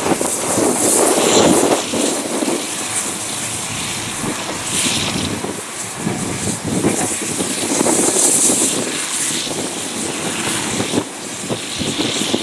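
Caledonian Railway 0-4-4 tank engine No. 419 (BR 55189) working slowly along the track, with short bursts of hissing steam about a second, five seconds and eight seconds in and again near the end.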